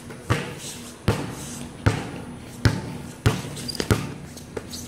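A basketball being dribbled on a concrete court: seven sharp bounces, one about every three-quarters of a second.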